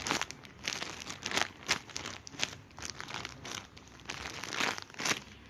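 Crinkling of a thin plastic wrapper as a squishy toy is handled and squeezed, in irregular crackles.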